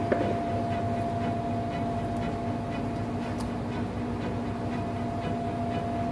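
Steady machine hum with a held high tone and a lower one over a low rumble, with faint regular ticking two or three times a second.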